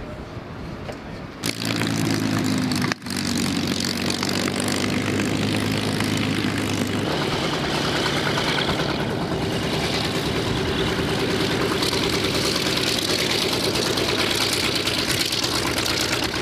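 Vought F4U Corsair's Pratt & Whitney R-2800 radial engine running as the fighter taxis, its propeller turning. The loud, steady engine sound starts suddenly about a second and a half in and turns rougher about halfway through.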